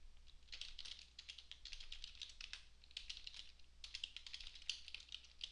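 Typing on a computer keyboard: a quick, irregular run of faint key clicks, over a low steady hum.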